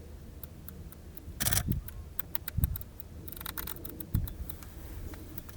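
Camera clicks and handling noises: scattered sharp clicks, a louder rustling bump about a second and a half in, and a quick run of shutter clicks about three and a half seconds in.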